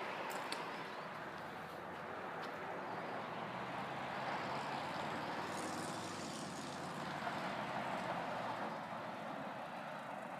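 A motor vehicle passing by: a low engine hum and tyre noise swell about three seconds in and ease off near the end.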